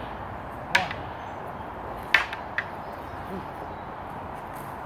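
Wooden Wing Chun long poles clacking against each other in sparring: a few sharp knocks, two of them louder, under a steady outdoor hiss.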